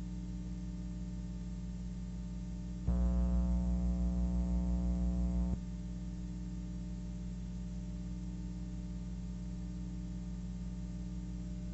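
Steady low electrical hum, joined about three seconds in by a louder buzzing tone with many overtones that wavers slightly and cuts off suddenly after under three seconds.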